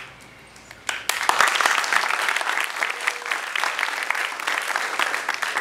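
Audience applauding, the clapping starting about a second in and holding steady until near the end.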